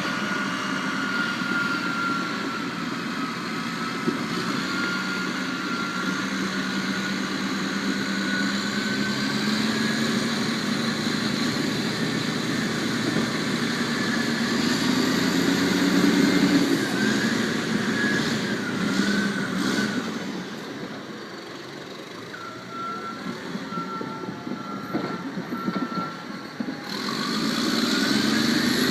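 Heavy machinery running, with a steady low engine sound and a wavering whine above it. It drops in level about two-thirds of the way through and comes back up near the end.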